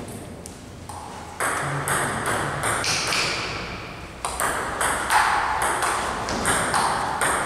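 Table tennis ball clicking off the table and the rubber-faced paddles. There are a few clicks about a second and a half in, then a rally from about four seconds in, with a hit or bounce about every half second.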